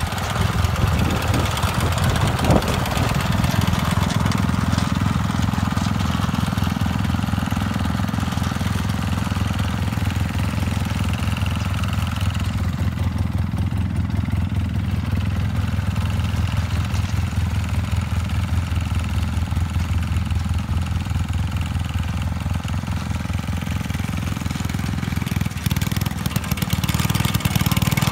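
Rapid Rex walk-behind motor mower running steadily under load as its front cutter bar mows tall grass. It grows a little louder near the end.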